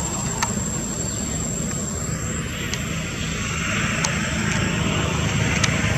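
Steady low engine rumble that grows louder over the last couple of seconds, with a high whine that rises about two seconds in and then holds.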